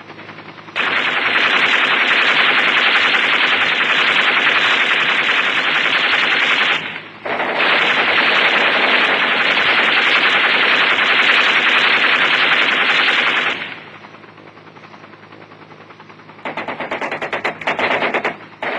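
Helicopter gunship's mounted machine guns firing in two long continuous bursts of about six seconds each, a short break between them. After a pause filled by a low steady hum, a few shorter bursts come near the end.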